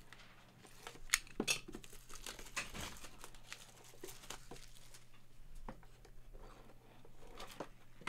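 Clear plastic shrink wrap crinkling and tearing as it is pulled off a small cardboard box, with a few sharp crackles about a second in.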